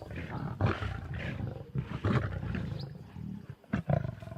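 Lions snarling at one another while feeding on a kill, in several short rough bursts, a sign of squabbling over food.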